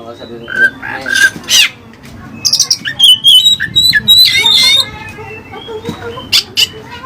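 Oriental magpie-robin (kacer) singing a rapid, varied run of loud whistles, chirps and harsh notes, its song filled with mimicked cililin phrases. The loudest, busiest stretch comes in the middle.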